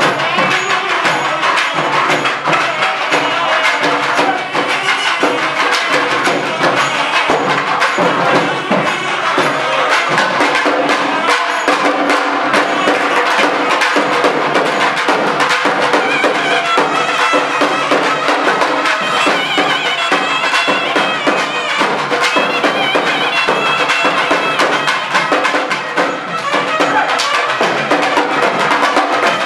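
Loud traditional music: fast, dense drumming with a reedy wind instrument playing a melody that comes forward in the second half.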